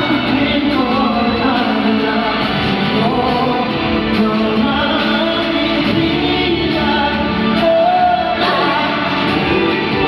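Male pop vocal group singing live through a concert sound system, with instrumental backing.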